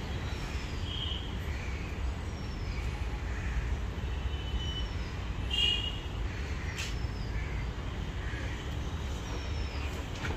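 Steady low background rumble, with short high chirps and thin falling whistles from birds every second or two and a single sharp click about two-thirds of the way in.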